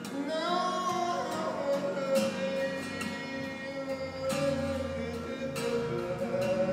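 A man singing a long held note, sliding up into it shortly after the start, over a strummed acoustic guitar.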